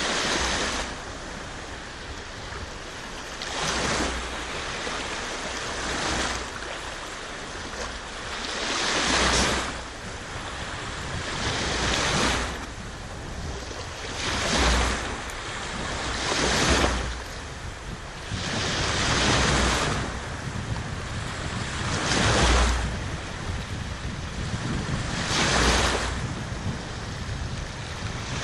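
Sea waves breaking on the shore one after another, a swell of surf about every two to three seconds over a steady wash.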